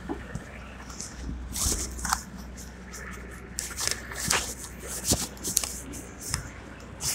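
Handling noise from a phone that is covered or pocketed: irregular rustles, scrapes and sharp clicks of the phone rubbing against clothing.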